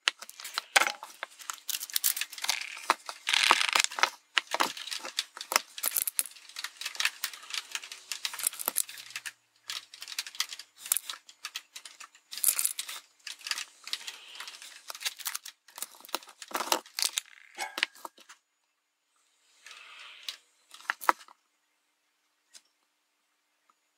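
Hands handling a small circuit board and its plastic LEDs: quick clicks, taps and rustling, dying away about three quarters of the way through, with a short faint patch of rustling and a couple of clicks later.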